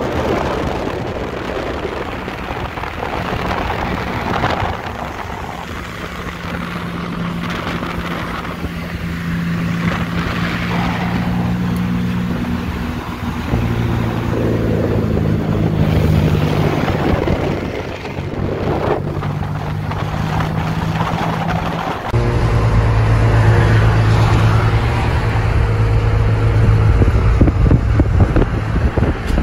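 Cars driving on the road with engine drone, tyre and road noise, and wind on the microphone; the drone holds steady notes that step up and down, with swells as the car passes. About 22 seconds in the sound changes abruptly to a louder, deeper drone.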